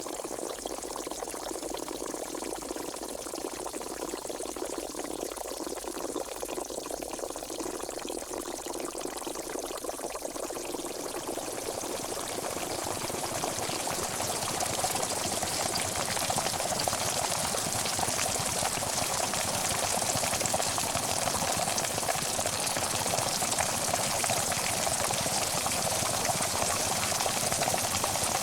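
Pot of water at a rolling boil, bubbling steadily; the boil grows louder and fuller about halfway through.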